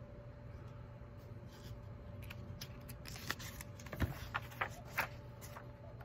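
Picture-book pages being turned and the book handled: a run of short papery rustles and taps, starting about two seconds in, over a faint steady hum.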